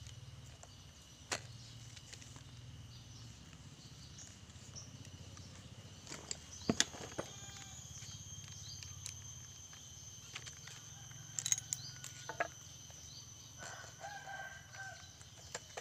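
Faint chickens clucking and a rooster crowing, with a few sharp clicks and knocks of tools being handled.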